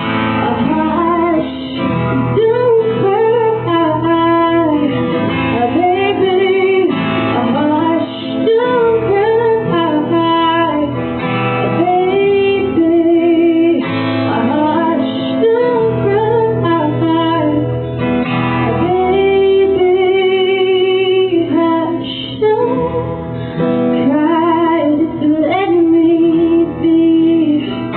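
A woman singing solo while accompanying herself on acoustic guitar, holding notes with a wavering vibrato.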